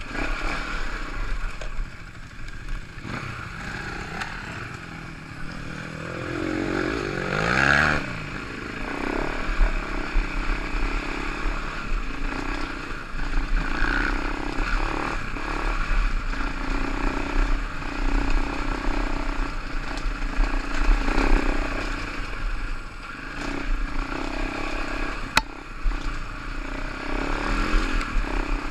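Enduro motorcycle engine revving up and down as it climbs a rough dirt trail, with the bike rattling over the ground and wind buffeting the helmet-camera microphone. A single sharp click sounds near the end.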